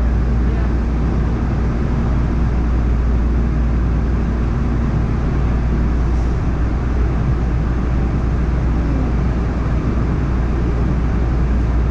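LA Metro A Line light-rail train running between stations, heard from inside the car: a steady low rumble, with a faint hum that drops out about halfway through.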